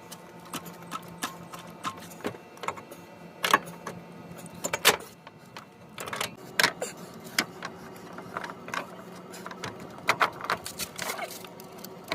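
Irregular metallic clinks and knocks of hand tools and parts being handled during front strut work on a car, with the loudest knocks about three and a half and five seconds in, over a steady low hum.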